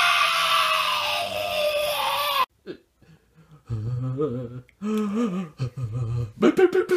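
A young man's long wailing cry, sliding down in pitch, cut off suddenly about two and a half seconds in. After about a second of silence come low, wavering whimpering moans, rising into a higher sob near the end: crying in distress.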